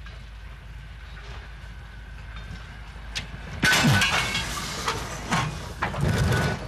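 Railway freight wagons rolling along yard tracks: quiet at first, then about halfway through a sudden loud rattling and clanking with a high metallic squeal, and a few more knocks toward the end.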